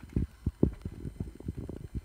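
A quick, irregular run of soft, dull thumps and bumps, several a second, with no voice or music.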